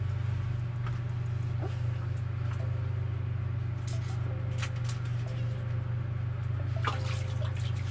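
A steady low mechanical hum, with a few faint clicks and ticks about halfway through and again near the end.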